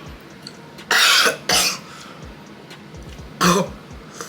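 Coughing from the burn of an extremely hot chili gummy bear: two harsh coughs close together about a second in and another near the end.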